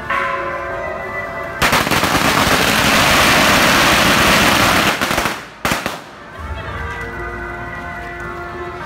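A string of firecrackers crackling off in rapid, continuous bangs for about four seconds, starting a second and a half in and stopping suddenly, with one last short burst just after. Music with steady held tones plays under it.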